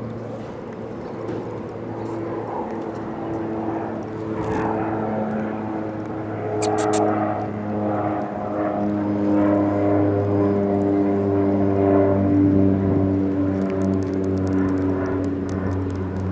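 Steady engine drone with several held tones that shift slowly in pitch, a few short clicks about seven seconds in and again near the end.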